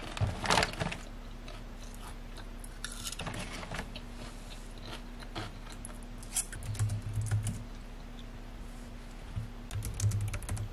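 Crinkling of a plastic potato-chip bag as a hand reaches in, then crisp crunching of potato chips being chewed. Near the end, a quick run of typing on a compact round-key computer keyboard.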